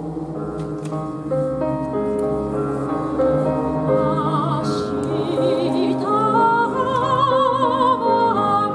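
Grand piano playing, joined a few seconds in by a soprano singing with a wide vibrato; her voice grows louder and rises in pitch about six seconds in.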